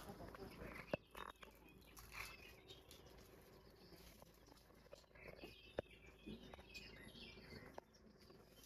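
Faint bird chirps, with a few sharp clicks, one about a second in and another near six seconds.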